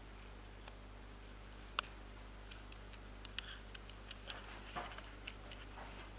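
Sparse, irregular small clicks and ticks, one sharp one about two seconds in and a quicker run of several near the end, over a faint steady hum.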